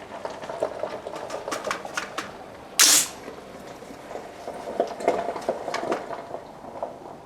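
Clicks and rattles of an AR-15-style rifle being handled and readied, with one sharp, loud crack about three seconds in.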